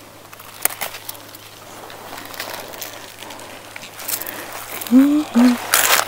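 Rustling and crackling close to the microphone, louder near the end, with a short vocal exclamation about five seconds in.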